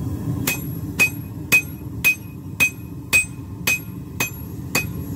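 Hand hammer forging steel on an anvil in an even rhythm, about two blows a second, nine blows each with a bright ring, over a steady low rumble.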